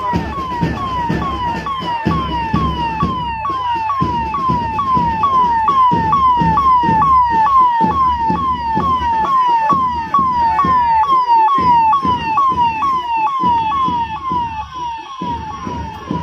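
Police escort vehicle's electronic siren repeating a short falling tone about twice a second, over the noise of a large crowd and vehicle engines.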